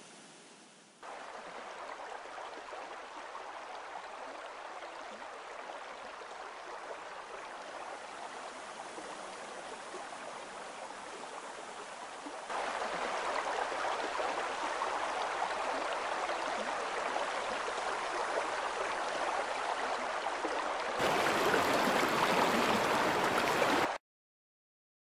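Rushing, gurgling water, getting louder in two steps and then cutting off abruptly near the end.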